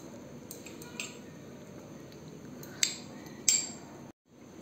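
Glass bowls clinking lightly as they are handled: a small click about a second in, then two sharper clinks close together past the middle, over a steady low hiss. The sound cuts out briefly near the end.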